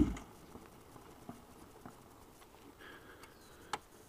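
A motorcycle engine cuts out right at the start, then near quiet with scattered light ticks and taps and one sharper click near the end.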